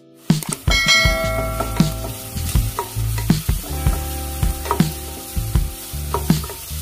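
Chopped onions frying in oil in a nonstick pot, sizzling as a wooden spatula stirs them, with repeated knocks of the spatula against the pan.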